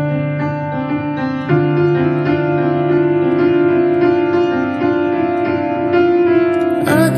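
Background music: a slow instrumental passage of sustained piano chords changing every couple of seconds, with a fuller, brighter layer coming in near the end.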